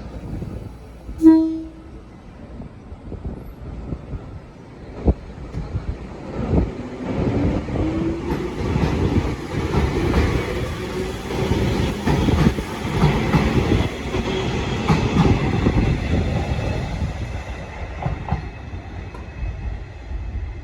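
A train sounds one short horn blast, then comes by. A rising whine and a rumble of wheel noise build to a peak and fade away near the end.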